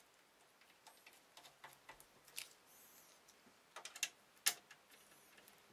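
Faint, scattered clicks and taps with short squeaky metal scrapes as a computer case panel and its screws are handled and fitted. The loudest click comes about four and a half seconds in.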